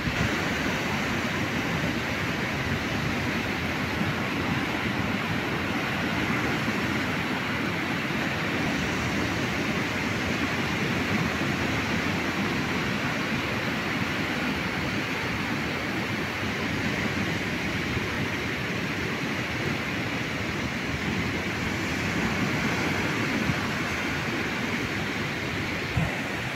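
Steady roar of ocean surf and wind, an even rushing noise with no breaks, with gusts rumbling on the microphone.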